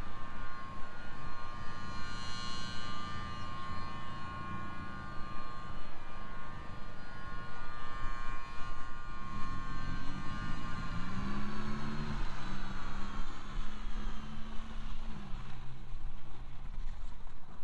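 Miniature model of a Thunderbolt siren sounding a steady multi-tone wail, heard from a distance. About ten seconds in it winds down in a long falling glide that fades out by about fifteen seconds.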